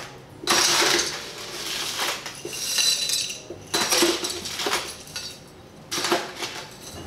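Crushed ice scooped with a metal ice scoop and poured into a glass, rattling and clinking, about four times with short pauses between scoops.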